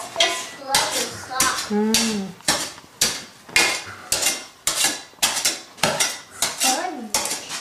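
A hand tool scraping and knocking at the floor in short strokes, about two a second, with a hard clattering sound.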